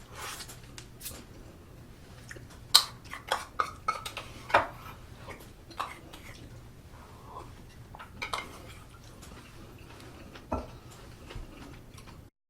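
Eating utensils clinking against dishes while eating army stew: a dozen or so sharp, irregular clicks, the loudest about three seconds in.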